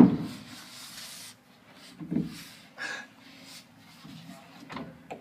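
A distressed man's breaths and gasps in short bursts. The loudest is a sharp gasp right at the start followed by about a second of breathy noise, and a steady low hum runs underneath.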